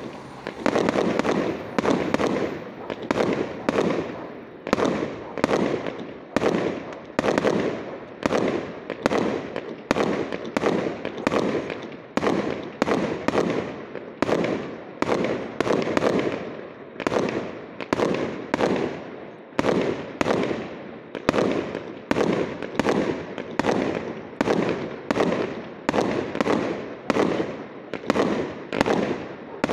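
Aerial fireworks shells bursting in a steady rapid sequence, about one to two bangs a second, each fading quickly before the next.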